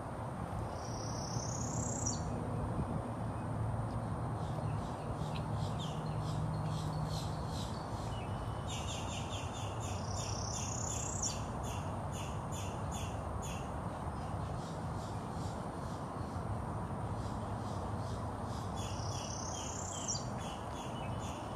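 A songbird singing the same phrase three times, about nine seconds apart: a high rising whistle followed by a quick run of short notes, over a steady background hiss.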